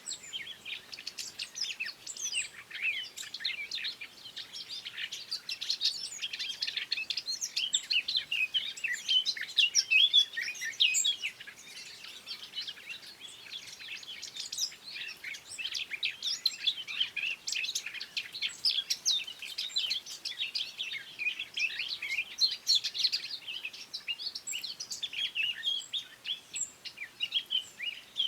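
Several songbirds singing and chirping together, a dense, continuous stream of short high chirps and warbling phrases.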